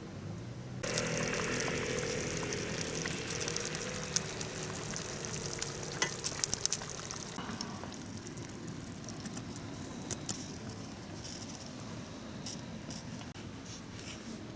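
Food sizzling in a hot pan. It starts suddenly about a second in, then settles into a steadier sizzle with scattered sharp crackles.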